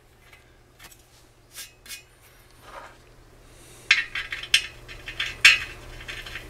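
Hardened steel hand tap being worked out of a freshly threaded hole in a thin-walled steel section. A few light metallic ticks come first, then from about four seconds in a run of sharp metal clicks and clinks as the tap knocks against the steel.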